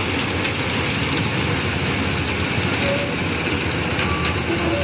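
Ballast hopper wagons unloading: a steady, even noise of crushed stone streaming out of the open hopper chutes onto the track, with the heavy low sound of the train at work underneath.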